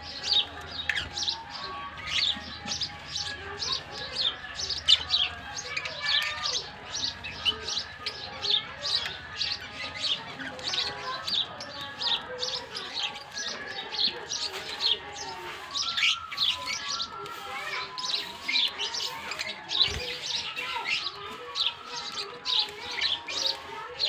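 A mixed aviary flock of diamond doves and small parrots chirping busily: a constant stream of short, high chirps, several a second.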